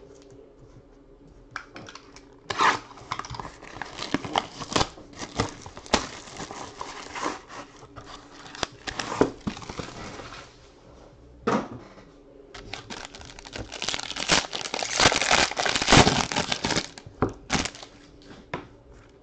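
Plastic shrink wrap torn and crinkled off a sealed box of basketball trading cards, in irregular crackles and rips. Then a foil card pack is torn open, with a denser, louder stretch of crinkling near the end.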